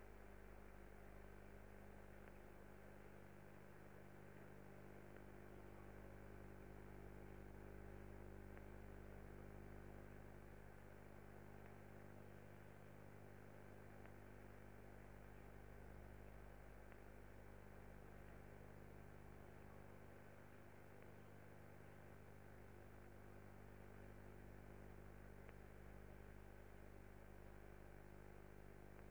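Near silence: a faint, steady electrical hum with light hiss and no other sound.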